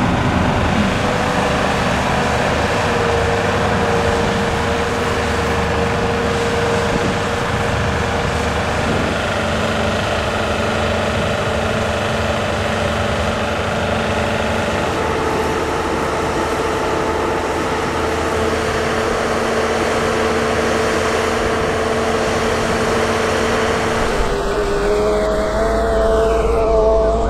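Heavy engine running steadily, with a steady whine over it that changes pitch a few times.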